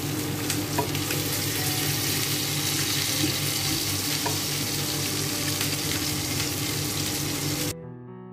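A steel pot of chorba vermicelle soup bubbling and hissing on the stove while a nylon ladle stirs and lifts it, with a few light clicks of the ladle against the pot over a steady low hum. Near the end it cuts off suddenly and soft piano music takes over.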